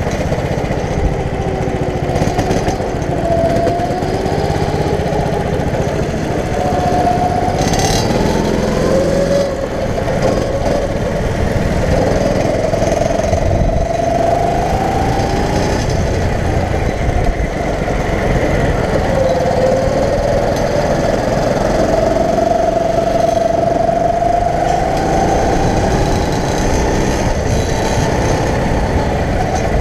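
Go-kart engine running at speed, heard from onboard. Its pitch rises and falls several times over a steady low rumble.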